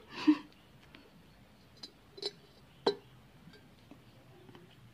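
Several light, sharp clinks on a glass jar holding live snakehead fish, about half a second to a second apart, with quiet between them.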